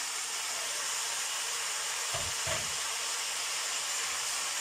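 Vegetables frying in oil in a cast-iron kazan, a steady sizzle as freshly added chopped tomatoes are stirred in with a wooden spoon. Two dull knocks come close together about two seconds in.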